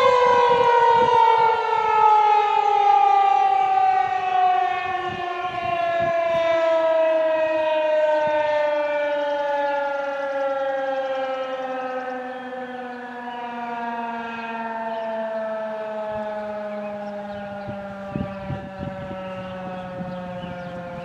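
Federal Signal 2001-130 outdoor warning siren winding down at the end of its steady Alert signal, its pitch falling slowly and evenly as it loses speed and grows gradually quieter.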